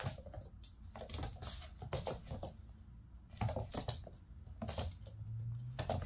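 A kitten's paws scrabbling and landing on a wooden floor as it pounces, in short clusters of quick taps about once a second.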